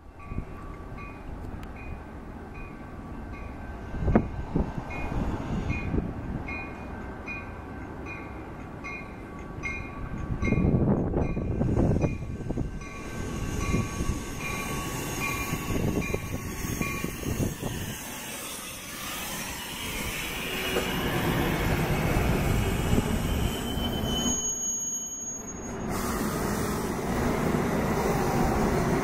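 Metra commuter train led by an EMD F40PHM-2 diesel locomotive approaching and running past, its rumble growing louder through the second half. Through the first half a bell dings about twice a second, and a brief high wheel squeal comes near the end as the bilevel cars pass.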